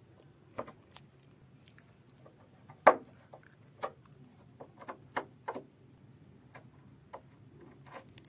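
Irregular light clicks and taps of hand-tool work on a plywood gate while its screws are being undone, with one sharper knock about three seconds in. A faint steady low hum lies underneath.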